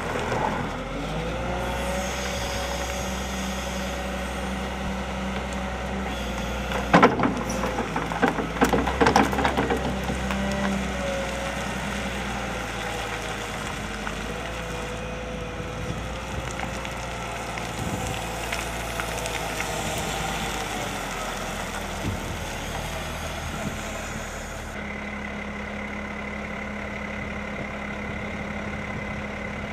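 Volvo L70F wheel loader's diesel engine running under work, its pitch wavering up and down as the machine drives and works the bucket. About seven to ten seconds in comes a spell of loud clanking and scraping, the bucket grating over the quay surface while clearing dredged material.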